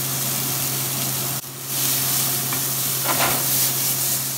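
Diced onion and garlic sizzling in hot oil in a nonstick frying pan as they start to sweat, with a spatula stirring them through the pan near the end.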